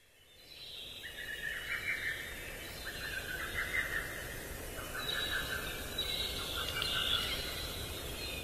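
Outdoor ambience of high, trilling chirps from small animals, fading in over the first second and going on in short overlapping phrases.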